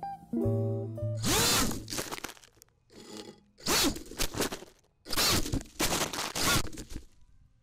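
Brushless motors and 5-inch props of a racing quadcopter revving in four short bursts, their whine sweeping up and down in pitch, as it thrashes about among leaves and twigs that crunch against it. The noise cuts off suddenly near the end.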